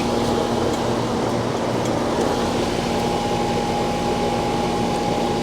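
Steady machine hum with constant tones over an even whooshing noise, from running air-conditioning equipment.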